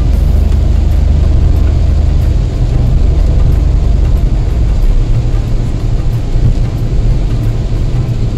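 Car driving on a wet road, heard from inside the cabin: a steady, loud low rumble of engine and road noise.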